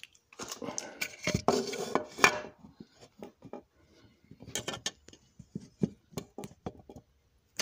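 Hands handling small hard parts on a workbench: a dense run of clattering and clicking about half a second in, then scattered single clicks and taps.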